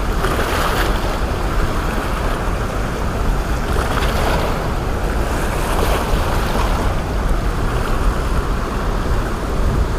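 Whitewater rushing steadily below the open spillway of a dam, a loud continuous noise with no breaks.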